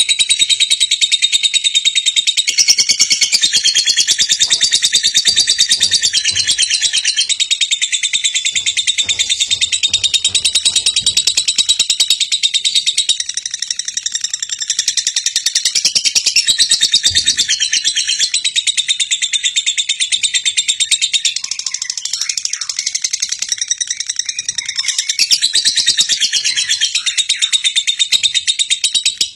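A dense, continuous chorus of high-pitched rapid chirping that cuts off abruptly at the very end.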